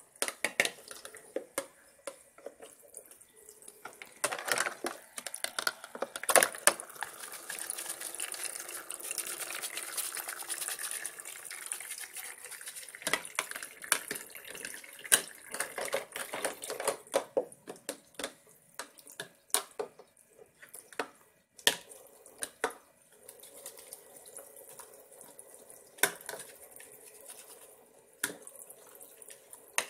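Water running and trickling from a toy kitchen sink's faucet, most steadily in the first half, with frequent clacks and knocks of plastic plates and utensils being washed in the basin.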